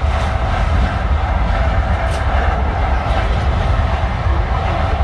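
Passenger train running along the track, heard from inside the carriage: a steady low rumble of the wheels on the rails, with a few faint clicks.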